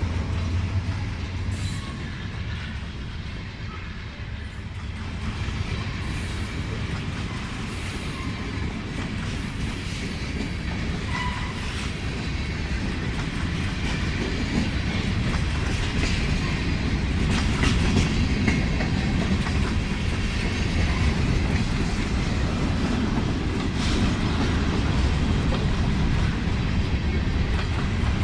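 Freight train rolling past with a steady low rumble, its wheels clacking over the rail joints. It dips a little about four seconds in, then grows louder and holds.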